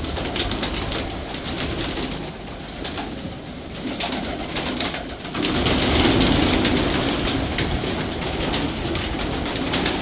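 Domestic pigeons cooing in a loft, the cooing growing louder about five seconds in.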